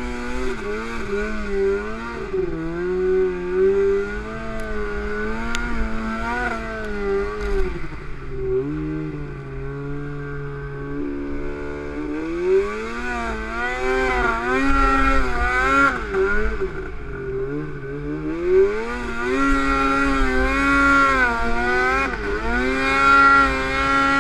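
Arctic Cat M7 snowmobile's two-stroke engine revving up and down over and over. It eases to a lower, steadier speed for a few seconds partway through, then revs hard again.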